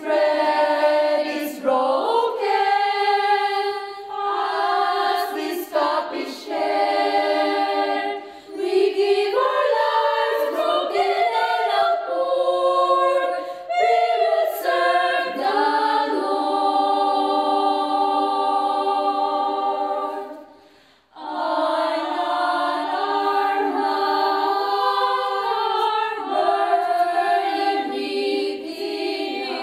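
A small choir of women singing a cappella, with some long held notes. The singing stops for a moment about two-thirds of the way through, then starts again.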